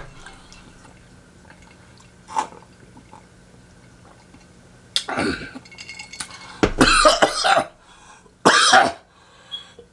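A man coughing and clearing his throat several times, starting about halfway in after a quiet stretch.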